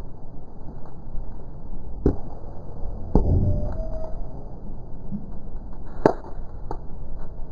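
Three sharp knocks, about two, three and six seconds in, the middle one loudest, over a steady low rumble.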